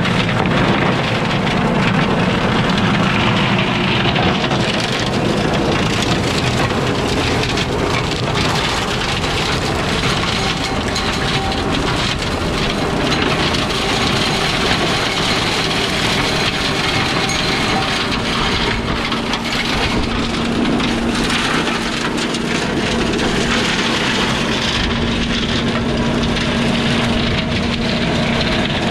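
Tractor-driven flail mower shredding pruned fruit-tree brush: a steady rushing clatter of flails smashing wood, with frequent cracks and snaps, over the tractor's engine running. A steady engine hum comes up more strongly in the second half.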